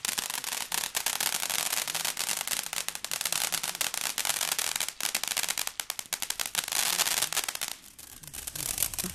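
Ground fountain firework crackling: a dense, rapid run of sharp pops and crackles as it sprays sparks. It eases briefly near the end, then picks up again.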